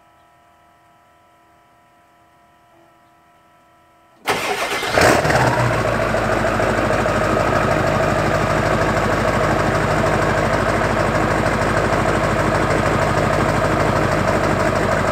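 Ford 7.3 Powerstroke V8 turbodiesel, fitted with a KC300X turbo, cranking and starting about four seconds in after a faint steady hum. It flares briefly as it catches, then settles into a steady diesel idle.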